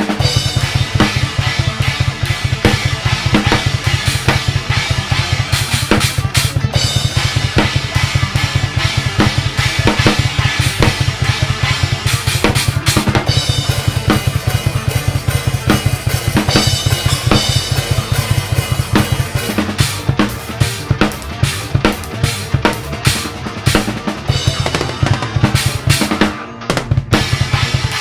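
Acoustic drum kit played fast: a near-continuous stream of rapid double-pedal bass-drum strokes under snare hits and Paiste cymbals. The bass drum thins out about two-thirds of the way through and drops out for a moment near the end before starting again.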